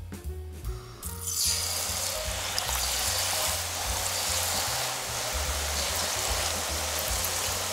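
Battered zucchini rolls deep frying in a pot of hot oil at about 170–175 °C. A loud, steady sizzle starts about a second and a half in and holds, with background music and a bass line underneath. Before the sizzle, only the music is heard.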